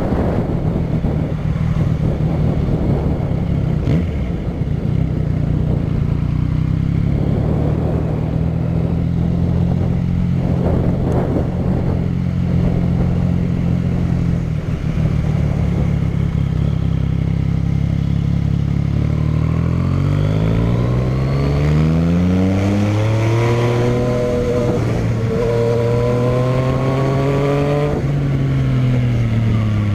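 Yamaha MT-09's inline three-cylinder engine through a short Dogster aftermarket exhaust with its dB killer fitted, holding a steady note on the move. About two-thirds of the way in the revs climb, drop back briefly at a shift, climb again, and fall off near the end.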